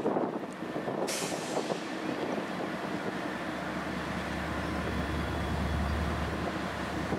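A CN freight train's diesel locomotive rumbling low and steady, swelling in the second half, with wind buffeting the microphone at the start. About a second in comes a sudden hiss of air from the train's brakes that fades away.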